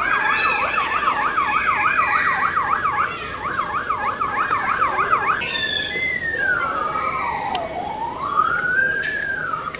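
Superb lyrebird mimicking an emergency-vehicle siren as part of his courtship display: a fast up-and-down yelp about three times a second, broken briefly about three seconds in, then a single slow wail that falls and rises again.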